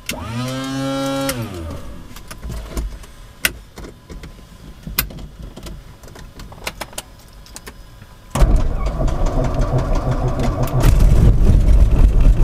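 Beechcraft A36 Bonanza's six-cylinder piston engine being started: a brief electric whine and a few switch clicks, then about eight seconds in the starter cranks and the engine catches, louder again near the end as it settles into a low-rpm idle.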